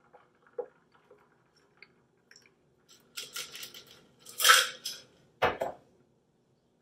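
A metal cocktail shaker is strained into a glass over ice. Faint ticks of ice and liquid come first, then ice rattles and clinks in the steel tin about three and four and a half seconds in, the loudest part. A sharp knock follows as the steel shaker tin is set down on the wooden counter.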